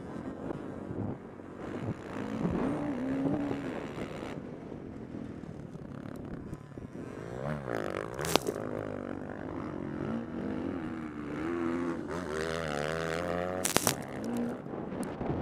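Four-stroke motocross bike engine revving hard and backing off through the turns, its pitch climbing and dropping again and again, with wind buffeting the microphone. Two sharp knocks stand out, about eight and fourteen seconds in, the first as sand roost from the bike ahead hits the rider.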